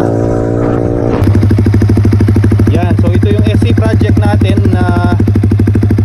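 Yamaha XSR155's 155 cc single-cylinder engine breathing through an SC Project aftermarket exhaust. It gives a steady engine note while riding, then about a second in switches to the parked bike idling with a deep, even pulsing.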